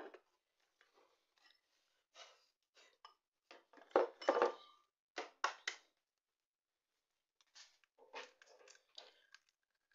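Scattered clicks and knocks of eggs and kitchen utensils being handled on a counter, loudest about four seconds in. Near the end, a cluster of small cracks and clicks as an egg is cracked open by hand over a plastic bowl to separate it.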